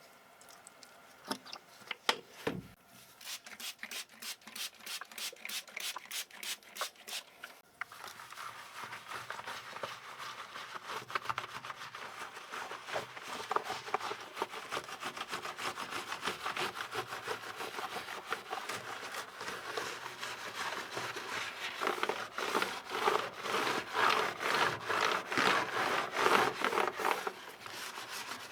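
Rapid back-and-forth scrubbing strokes on a keyboard being cleaned. The strokes are sparse at first, then become dense and steady from about eight seconds in, heaviest near the end.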